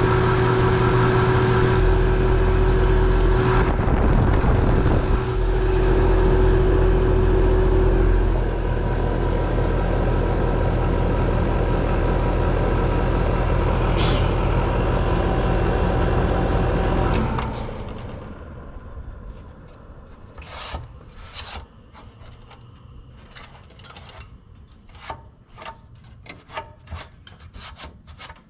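Lennox heat pump outdoor unit running with its newly replaced condenser fan motor: a steady hum and fan rush that sounds smooth. It shuts down suddenly about seventeen seconds in, followed by scattered clicks and handling noises.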